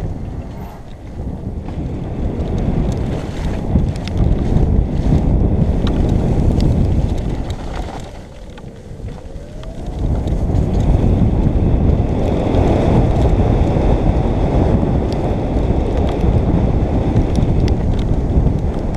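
Wind buffeting a helmet-mounted camera's microphone on a fast downhill mountain bike run, mixed with the tyres rolling over the dirt trail and scattered clicks and rattles from the bike over bumps. The rush eases for a couple of seconds about eight seconds in, then comes back stronger.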